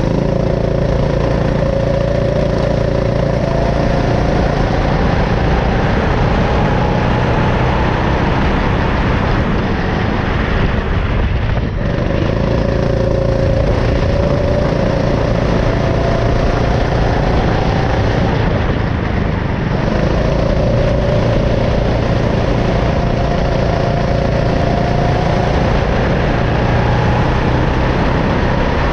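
A CRG go-kart's engine heard up close from the kart itself, its pitch climbing slowly as it accelerates, dropping off sharply twice as the driver lifts for corners, then climbing again.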